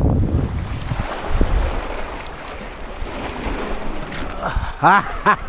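Wind buffeting the microphone over sea waves washing against the rocks of a breakwater. Near the end a rapid string of short pitched calls begins, about four a second.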